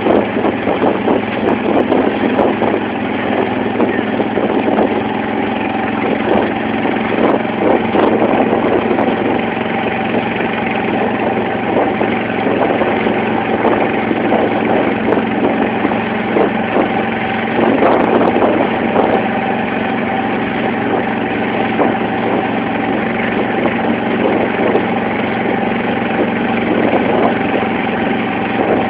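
Banka motorboat's engine running steadily while underway, with water splashing and rushing along the wooden hull.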